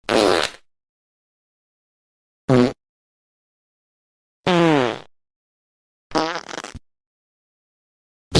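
A series of fart sounds, four short blasts each under a second long, separated by dead silence, with a fifth starting at the very end. Several fall in pitch, and the fourth is rougher and sputtering.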